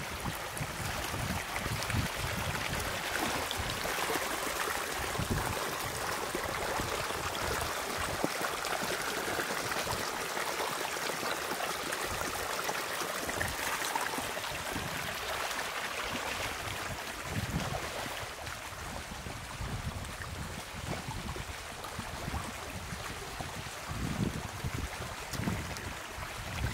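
Running water, a steady rushing and trickling, with gusts of wind buffeting the microphone now and then, more often near the end.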